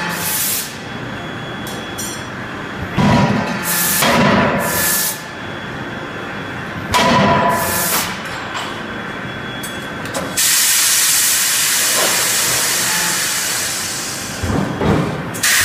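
31.5 kJ drop die forging hammer forging a hot steel billet: heavy blows in pairs about a second apart, then a long steady hiss starting about two-thirds of the way in, and more blows near the end.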